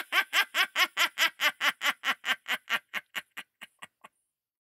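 A cackling laugh: a rapid run of 'ha' pulses, about five a second, that slow and fade away, stopping about four seconds in.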